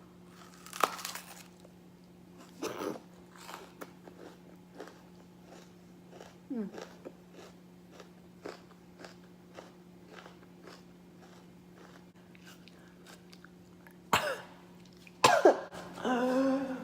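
Someone chewing a mouthful of raw red onion, crisp crunches coming steadily about two to three times a second. A few loud coughs break in, one just after the start and two near the end.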